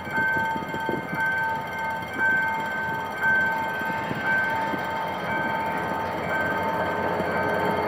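A level-crossing warning signal ringing in a steady two-tone beat, swelling about once a second. Under it is the low running of a GM GT-22CW-2 diesel locomotive hauling a passenger train, which grows a little louder toward the end as it nears the crossing.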